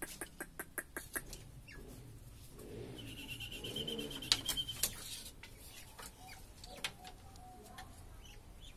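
Poultry-coop sounds: a quick run of sharp clicks and taps in the first second, then a low bird call about three seconds in, overlapped by a high, rapid trill from another bird, with a few scattered ticks afterwards.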